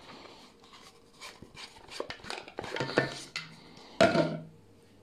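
Clicks, taps and rubbing of a brass-bodied foam cannon being handled and taken apart: its plastic bottle is unscrewed and the head with its siphon tube lifted clear. The loudest knock comes about four seconds in.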